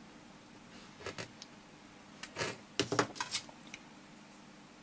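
Screwdriver scraping and clicking on a stripped screw in a plastic UK mains plug as it is pressed and turned, in scattered short clicks about a second in and again in a cluster between two and three and a half seconds. The screw had been over-tightened and has torn the threads out of its hole in the plastic.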